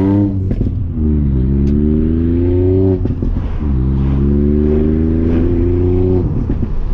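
Ford Fiesta ST MK8's turbocharged 1.5-litre three-cylinder, through a valved Scorpion cat-back exhaust with the GPF deleted, heard from inside the cabin as the car accelerates through the gears. The revs fall at the start, climb, drop at a gear change about three seconds in, then climb again and drop near the end. A few pops and crackles sound from the exhaust each time the revs fall.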